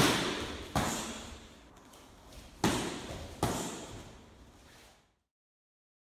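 Four sharp slaps of strikes landing on a handheld focus pad, the first a kick, coming in two quick pairs, each echoing in a large hall.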